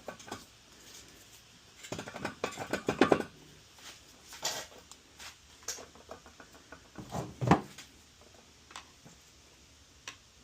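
Scattered metallic clinks and knocks of hand tools working on an LSA supercharger while prying at its isolator. They come in clusters about two seconds in, around four and a half seconds, and about seven seconds in.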